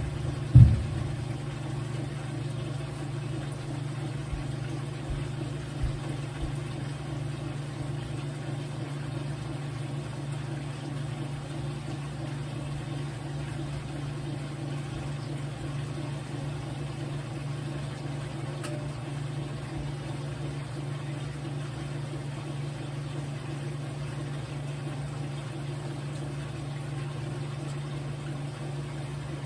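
Whirlpool washing machine running with a steady, even motor hum. A sharp knock sounds about half a second in, and a lighter one about six seconds in.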